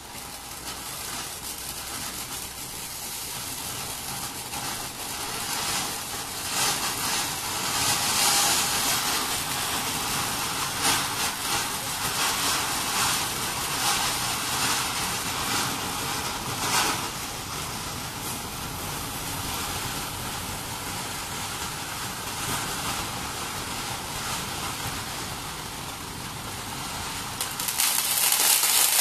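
Ground firework fountain (a triple fountain) burning with a steady hissing rush. Crackling grows through the middle, and the rush gets louder near the end.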